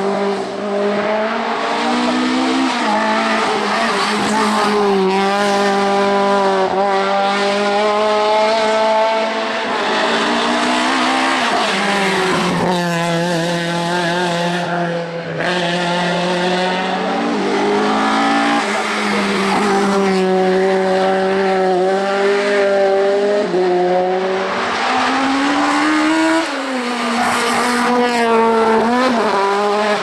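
Hill-climb race car engines at full throttle as cars take a tight bend and accelerate away one after another. The engine note rises in pitch and drops back at each gearchange, again and again, over a steady droning tone.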